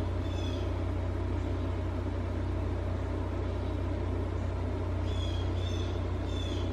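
Steady low rumble of outdoor city background noise, like distant traffic. A small bird chirps briefly near the start and again a few times near the end.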